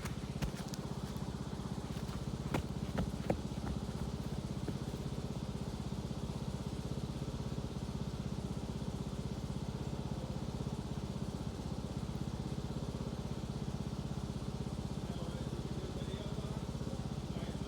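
Riding lawn mower's small engine running steadily under way, with a few sharp clicks in the first few seconds.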